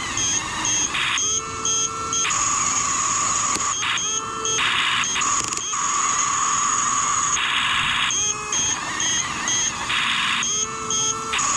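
Remote-control bulldozer running: a steady high electronic whine with runs of short, rapid beeps, over a noisy mechanical hum, in a pattern that repeats every few seconds.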